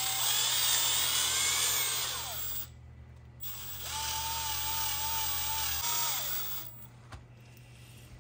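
Red brushless cordless drill spinning a citrus reamer inside an orange to juice it, its motor whining. It runs with its pitch dropping for about two and a half seconds, stops, then runs again at a steady pitch for about two seconds before winding down.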